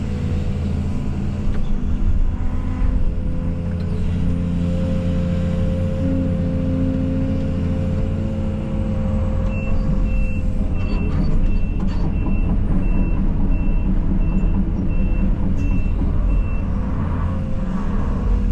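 Case CX220E excavator's diesel engine running steadily. About halfway through, its travel alarm starts beeping, about ten short high beeps over some seven seconds, the sign that the machine is tracking.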